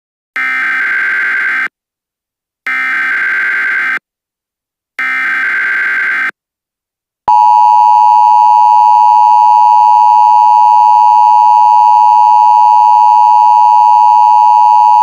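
Emergency Alert System alert opening. It begins with three bursts of SAME header data tones, each a little over a second long with about a second between them. About seven seconds in, the loud, steady two-tone EAS attention signal starts and holds.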